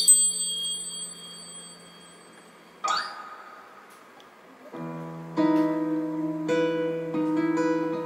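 A small hand-held metal bell is struck at the start, its high tones ringing out over a fading guitar chord, and sounds again about three seconds in. From about five seconds in, acoustic guitar plays slow picked notes.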